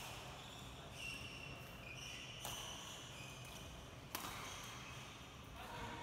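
Faint, short squeaks of court shoes on a badminton court mat, with two sharp taps about two and a half and four seconds in, the second the louder.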